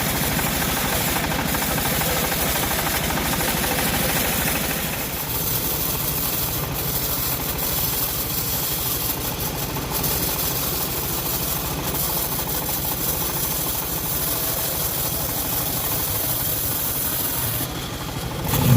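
Engine of a homemade bandsaw mill running steadily, with a fast, even pulse. A brighter hiss on top for the first five seconds or so fades out while the engine keeps running.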